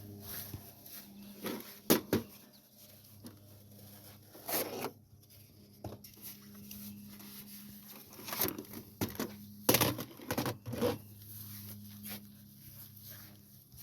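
Scattered clicks, knocks and rustling of hands and tools at work, loudest around two seconds in and again near ten seconds, over a faint steady low hum.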